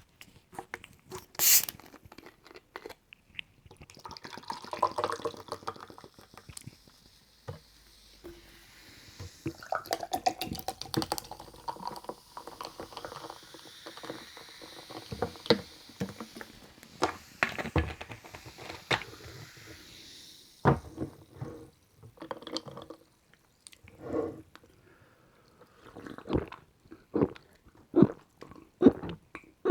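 Carbonated orange-mango sparkling drink: a sharp hiss as it is opened, then fizzing as it is poured, followed by a series of swallowing gulps about once a second.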